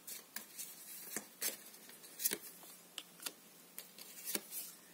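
Tarot deck being shuffled and cards drawn by hand: a run of irregular, crisp clicks and snaps of card stock, a few each second.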